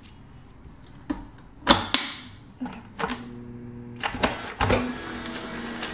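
A few sharp knocks and clatters of produce being handled and dropped into the juicer, then a Nama J2 slow juicer's motor humming steadily from about halfway.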